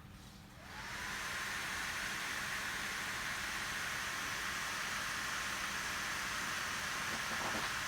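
Gigabyte Aero 17 laptop's cooling fans spinning up a moment in, with a faint rising whine, then running at high speed as a steady airy rush in turbo mode.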